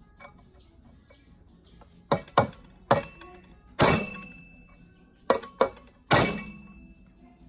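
Sharp metal-on-metal knocks on parts of an old rusted cutting machine, about seven strikes in uneven groups. The two loudest leave a ringing tone behind them.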